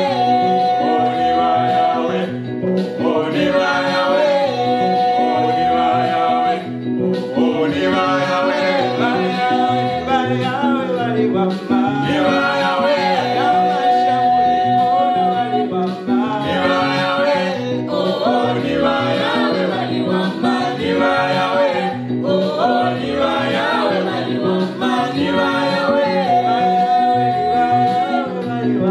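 Gospel praise song sung in Bemba by a small mixed group of voices over keyboard accompaniment with a steady beat. The phrases repeat, each ending on a long held note.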